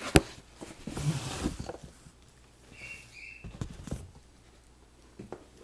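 Handling of a plastic model kit and its packaging: a sharp click just after the start, then rustling and scattered taps and clicks. Two short high squeaks come near the middle.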